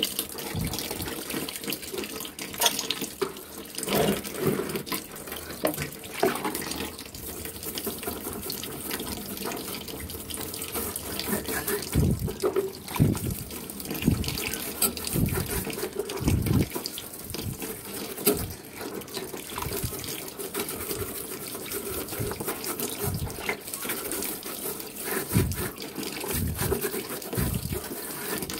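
Stiff-bristled scrub brush sloshing in a bucket of soapy water and scrubbing a wet wire fan guard, with irregular splashes and swishing strokes.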